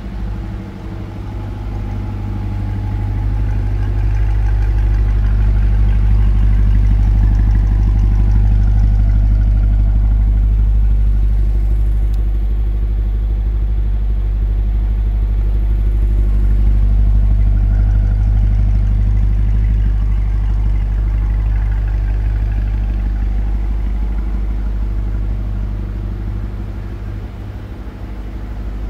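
2022 Chevrolet Corvette's 6.2-litre LT2 V8 idling steadily, with no revs. The level swells gently a few seconds in and eases off near the end.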